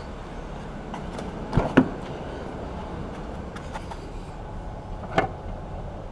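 2007 Pontiac Vibe's four-cylinder engine idling steadily, just restarted on a newly fitted fuel pump assembly, with the fuel pump running. A couple of sharp clicks come near two seconds in and another about five seconds in.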